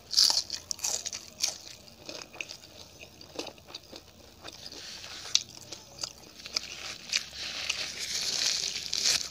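A person biting and chewing crisp fried food close to the microphone, with a string of sharp crunches and mouth clicks that thickens into steady crunching near the end.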